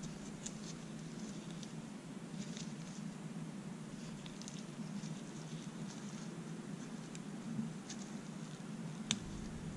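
Rubber-gloved fingers handling and turning corroded Mugen heptagon wheel nuts: faint scattered scratching and light clicks, with a sharper click near the end, over a low steady hum.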